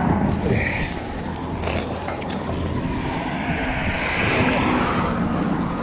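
Road traffic rumbling steadily, with a vehicle going by about three to five seconds in.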